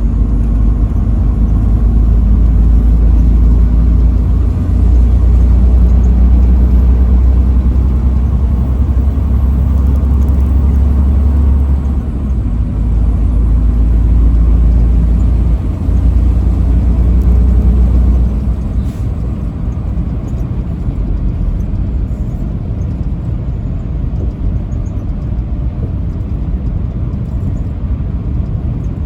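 Truck driving on the highway: a deep, steady rumble of engine and road noise, which drops noticeably quieter about two-thirds of the way in.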